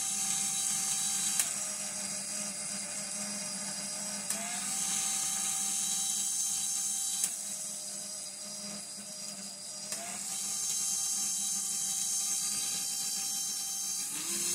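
Electronic locomotive engine sound from the MRC Sound & Power 9001's loudspeaker, a steady drone whose note steps up with added hiss and back down about every three seconds, each change set off by a button click as the nudge control is worked. Near the end the engine note starts to climb as the throttle is turned up.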